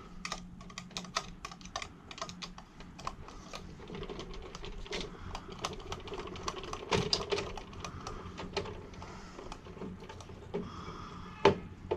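A quick, irregular run of small clicks and taps from hands working tools and small parts, with one sharper click near the end.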